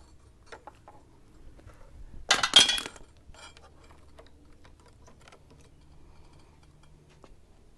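Small metal parts and tools being handled, with light clicks and taps and one loud metallic clatter and clink about two and a half seconds in.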